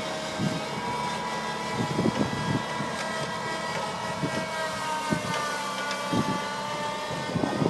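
The four-cylinder Datsun A12 engine of a mini Cat Challenger tracked tractor running steadily under load as it pulls a potato plow, its pitch drifting slightly. Irregular low thumps run through it.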